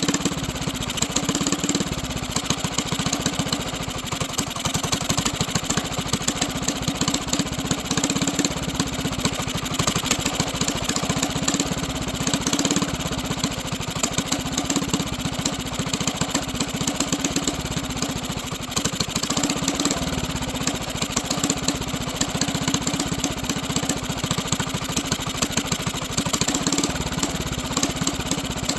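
Mini bike's small single-cylinder engine running steadily at a low idle, its rapid firing pulses even throughout.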